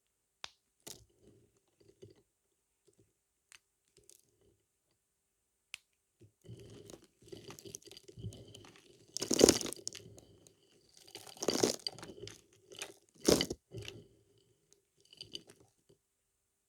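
Knife cutting into a dry bar of soap, with crisp crunching and crumbling. A few faint ticks at first, then steadier scraping from about six seconds in, with three loud crunches about two seconds apart.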